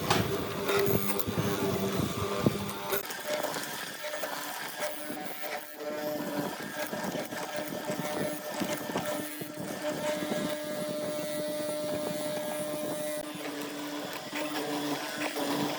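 A machine's motor running steadily with a constant hum.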